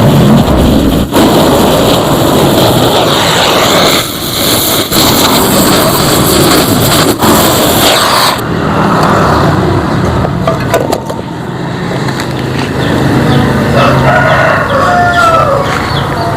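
Loud harsh mechanical noise that stops about eight seconds in, leaving a lower steady hum; a rooster crows near the end.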